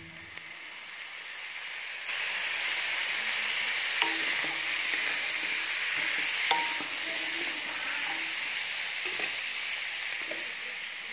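Chicken feet frying in a pan with a steady sizzle that grows louder about two seconds in, and a few light knocks as a spatula stirs them.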